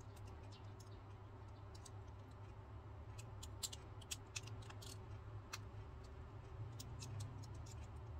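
Faint, scattered small clicks and taps of a plastic circuit breaker housing and its brass contact parts being handled and worked loose by hand, with a few sharper clicks in the middle, over a steady low hum.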